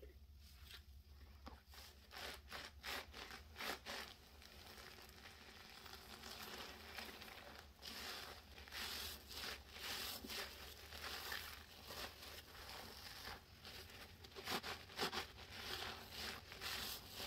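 Sponges soaked in dish soap and baking soda being squeezed by gloved hands: repeated wet squishes of foam in quick, irregular strokes, starting about a second in.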